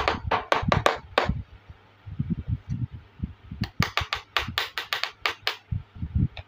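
Small plastic toy cookware (a miniature pot and its lid) clicking and tapping against each other and the tabletop as they are handled and set down. A quick run of sharp clicks comes at the start, then soft low knocks, then a second run of clicks about three and a half seconds in.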